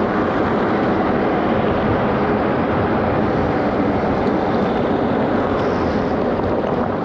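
Steady rush of wind and tyre-on-road noise on the camera microphone while riding a Super73 electric bike along a tarmac street.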